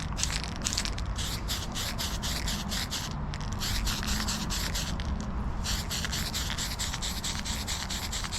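Aerosol can of Tamiya spray paint hissing in rapid short bursts, several a second, with a couple of brief pauses, as a coat of paint goes onto a primed part.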